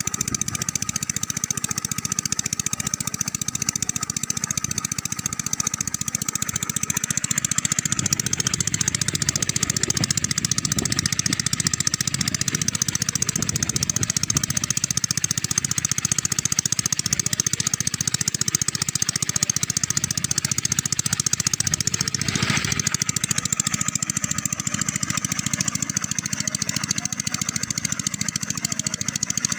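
Stationary 7 HP diesel engine running steadily while it drives a water pump, with a continuous rapid chug that grows a little louder about seven seconds in. A short, sharper sound cuts through about two-thirds of the way along.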